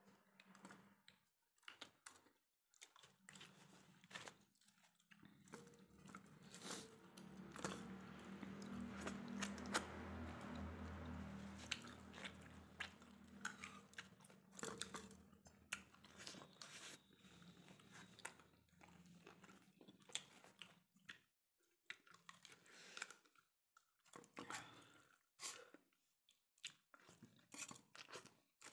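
Close-up chewing and crunching of a man eating chicken curry with roti, with many small mouth clicks and bites. A steady low hum with a faint hiss rises in about five seconds in, is the loudest thing for some fifteen seconds, and fades out around twenty seconds in.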